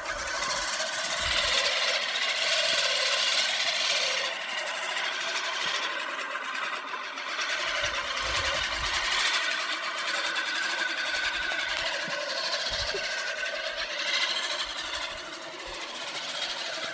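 Lawn mower starting up suddenly and running steadily under cutting, a continuous machine sound with little low rumble, with scattered low thumps.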